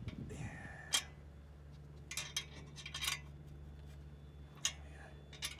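Metal-on-metal clinks of a spanner working the nut of a Peugeot 206 exhaust clamp as it is tightened: a few sharp clicks about a second apart, some in quick clusters, over a steady low hum.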